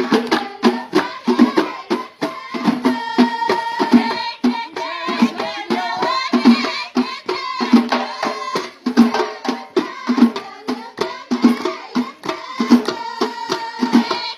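Ahwash music: a group of men beating large frame drums in a steady interlocking beat, with group singing over the drums.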